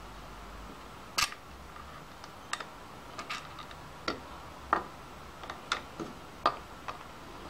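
Irregular light metal clicks and taps, about nine of them, the sharpest about a second in, as a motorcycle's fuel pump and tachometer drive assembly is handled and fitted by hand against the engine case.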